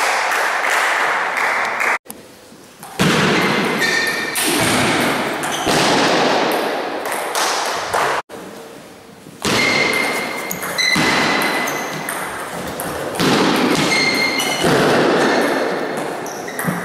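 Table tennis balls clicking off bats and table tops, with thuds and short squeaks, in a reverberant sports hall. The sound cuts out abruptly twice, about two and eight seconds in, then comes back.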